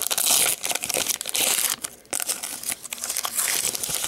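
Foil wrapper of a Pokémon trading card booster pack crinkling and tearing as it is pulled open by hand, a dense run of crackles and snaps.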